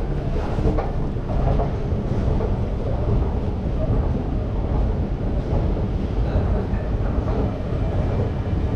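Subway station escalator running, a steady low rumble.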